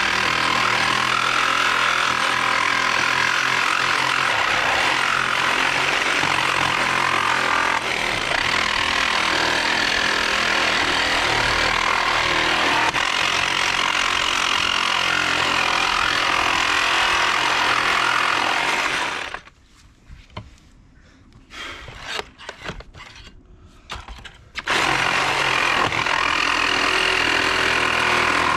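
DeWalt 20-volt cordless reciprocating saw running, its standard non-carbide blade cutting through steel decking screws embedded in a wooden 2x6. The saw stops about two-thirds of the way through, leaving a few seconds of quieter handling noise, then starts cutting again near the end.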